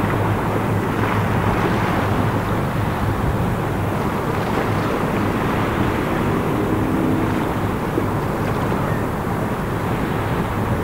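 Steady low drone of a Flamant-class patrol vessel's engines as it passes, mixed with wind noise on the microphone.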